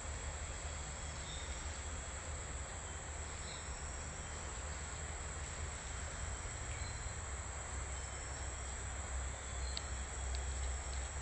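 Steady insect buzzing in tropical forest, over a low rumble, with a few faint clicks near the end.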